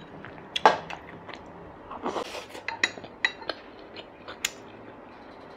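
Wooden chopsticks and a wooden spoon clicking and tapping against the bowls: a string of short, sharp clicks, busiest between about two and four and a half seconds in.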